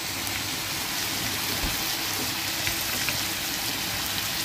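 Taro stolons, onion and green chillies frying in oil in a kadai, with a steady sizzle.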